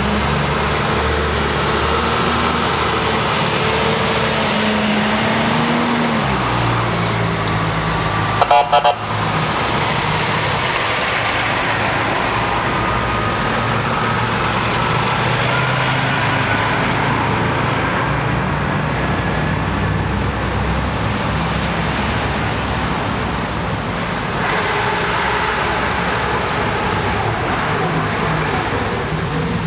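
Fire engines and other emergency vehicles passing slowly one after another, their engines running steadily, with the engine note changing as each vehicle goes by. A brief loud burst sounds a little over eight seconds in.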